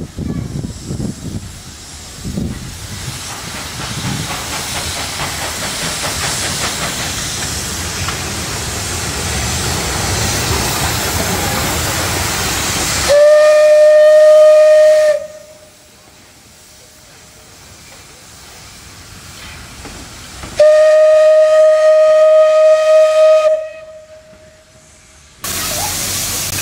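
ČSD class 433.0 steam tank locomotive hissing steam, the hiss growing steadily louder, then two loud whistle blasts of about two to three seconds each on one steady pitch, with quieter hiss between them. The steam hiss starts again near the end.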